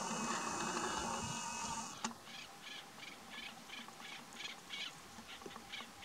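A loud rushing noise for about two seconds that cuts off with a click. Then a partridge calls in a quick run of short, high notes, about four a second.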